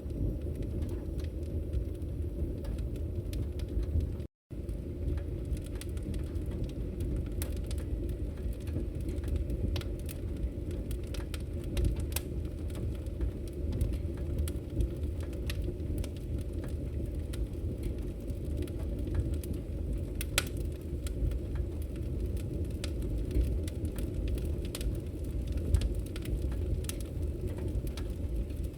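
Wood fire crackling and popping over a steady low rumble, with sharp snaps every so often. A brief gap of complete silence cuts in about four seconds in.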